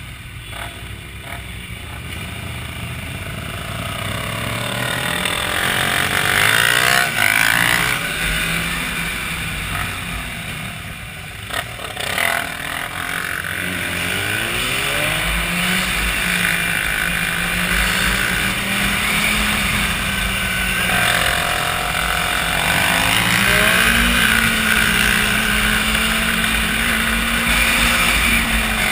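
Sport motorcycle engine accelerating, its pitch climbing in several pulls through the gears, with wind rushing over the microphone.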